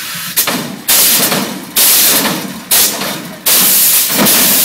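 Chevrolet S10 mini-truck's air-bag suspension hopping: valves firing pressurised air into and out of the bags in about five loud blasts of hiss, roughly one a second, each starting suddenly and then fading.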